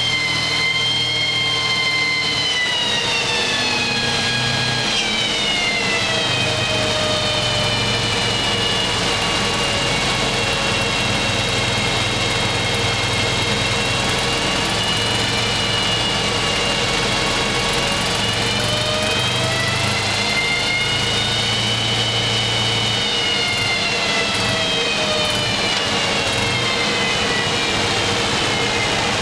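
BMW R80 airhead flat-twin engine running steadily under load with its rear wheel driving a chassis dynamometer roller. A high whine rides over the engine, falling in pitch over the first several seconds, holding, then rising about two-thirds through and falling again near the end as speed changes.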